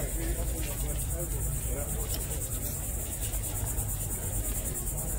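Insects trilling steadily in a high, rapidly pulsing buzz, over a constant low rumble and faint chatter of people nearby.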